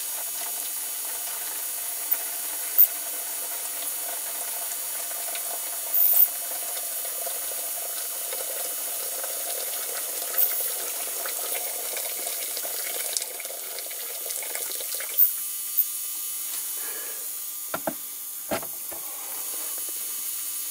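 Boiling water pouring steadily from an electric kettle into a plastic tub, stopping about three-quarters of the way through; a couple of short knocks follow near the end.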